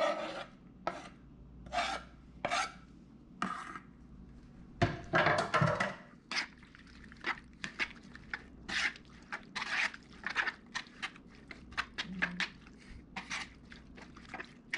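A chef's knife blade scraping chopped garlic and herbs across a wooden cutting board, then bare hands tossing diced raw fish and onion in a plastic bowl, in a string of short, uneven rubbing and scraping strokes.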